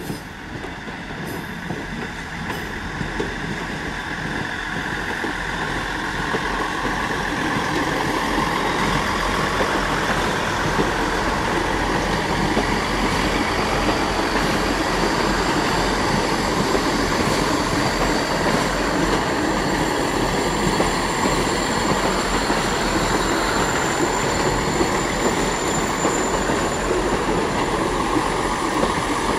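Diesel train running, its engine noise building over the first several seconds and then holding steady.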